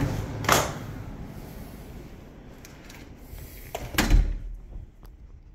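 A balcony door knocks once about half a second in, then shuts with a heavier, booming thud about four seconds in; once it is shut, the steady outdoor hiss drops away.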